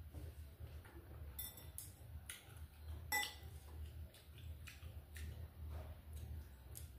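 Chopsticks clicking and clinking against ceramic bowls during a meal: scattered light taps, the loudest about three seconds in with a brief ring. A steady low hum lies underneath.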